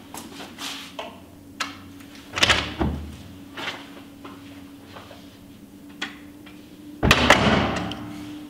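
Footsteps on a tiled floor, a door clunking open about two and a half seconds in, and a door swinging shut with a loud bang about seven seconds in, its sound ringing on for about a second.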